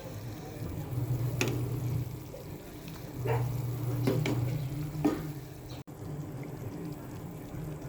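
Cooking sounds: a handful of sharp clinks, like a utensil knocking against a pot, over a steady low hum.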